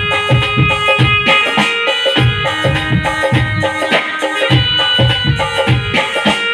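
Music: a quick drum rhythm with held melodic notes sustained over it.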